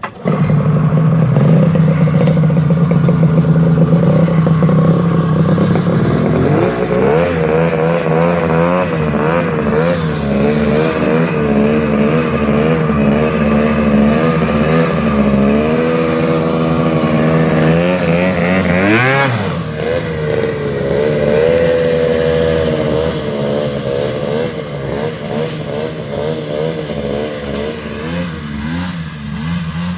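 Polaris Indy 650 three-cylinder two-stroke snowmobile engine running hard and revving, its pitch climbing and dropping as the throttle is worked. About two-thirds through it revs sharply up and back down, and it grows a little quieter near the end.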